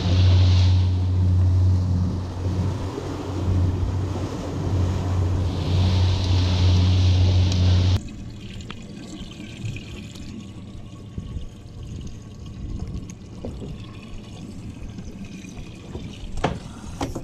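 Suzuki 300 outboard engine running steadily, with wind and rushing water over it. About eight seconds in it cuts off sharply to quieter water sloshing and trickling in a boat's livewell as a dip net scoops bait, with a few light clicks.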